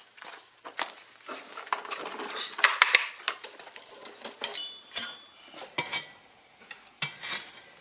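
Shaking out a freshly poured sand mold: scraping and crunching through black foundry sand, with scattered light metallic clinks as the cast-iron muller plow casting is uncovered.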